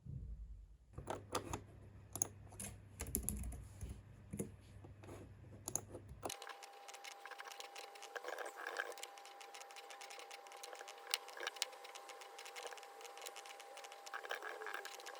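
Typing on a computer keyboard: irregular, rapid key clicks. About six seconds in the low background hum gives way to a faint steady high tone under the clicks.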